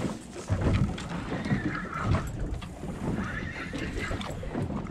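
Choppy water knocking and slapping against a small boat's hull, with wind on the microphone, as a few irregular low thumps over a steady rush.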